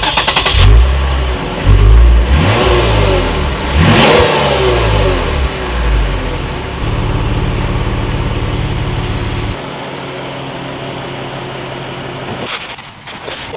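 Lexus RC350's 3.5-litre V6 starting, heard at the exhaust tips: the starter cranks briefly, the engine catches and flares up in revs, and the pitch falls away over several seconds into a steady fast idle. About nine or ten seconds in, the idle steps down lower, and near the end the sound drops away.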